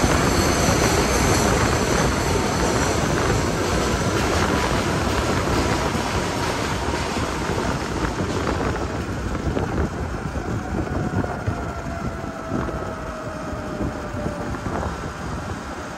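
Wind rushing over the microphone and road and traffic noise while riding a Sur-Ron electric dirt bike, with a faint whine that slides slowly down in pitch. The rushing eases off in the second half.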